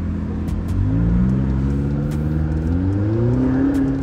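Car engine heard from inside the cabin, accelerating: its pitch starts rising about a second in and keeps climbing, then drops back near the end as the driver eases off.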